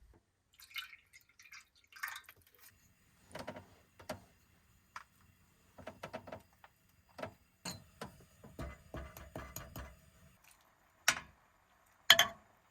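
Irregular small clicks, taps and rustles of objects being handled at close range, with two louder knocks near the end.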